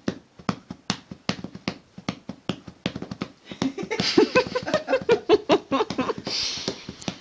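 An open hand rapidly slapping a tabby cat's back, a steady run of sharp pats about five a second. A voice sounds over the pats in the middle.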